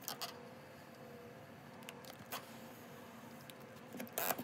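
Stretch-release adhesive strip being pulled slowly out from under an iPhone 6 battery: mostly quiet, with a few faint clicks and a short burst of crackling near the end.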